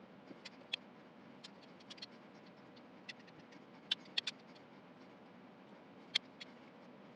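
Scattered small sharp clicks and taps of a folding knife's parts and tools being handled during reassembly, with a cluster of three about four seconds in and a single loud click about six seconds in.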